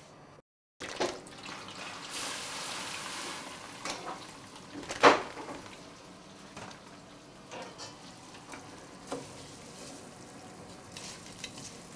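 Stovetop cooking: food sizzling in a hot pan with a hiss that swells and fades, one sharp knock about five seconds in, then quieter small clicks and clatter of pans and utensils.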